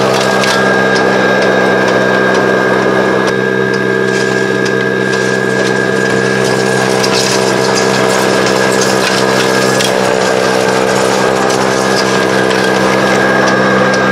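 Greenworks Pro 80V two-stage electric snow blower running under load: a steady electric motor hum with a high whine, over the hiss of the auger and impeller churning through and throwing snow.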